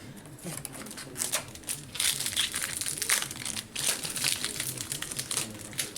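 Foil wrapper of a Yu-Gi-Oh booster pack crinkling as it is handled, busiest from about two seconds in.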